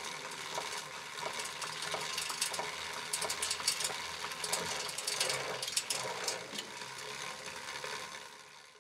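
Sound effects for an animated logo: a dense mechanical whirring crowded with sharp clicks and ticks, like turning gears or a ratchet. It fades out near the end.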